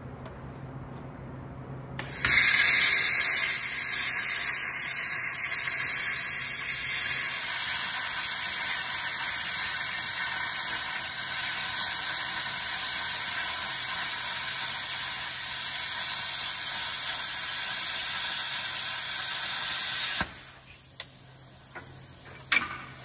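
A power tool cutting metal on the car's lower coilover mount: a loud, steady hissing cut that starts about two seconds in and stops suddenly near the end, followed by a few sharp clicks.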